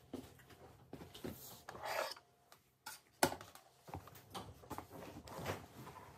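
Fabric rustling and light knocks as cloth items and a canvas tote bag are picked up and moved about, with a sharp knock about three seconds in.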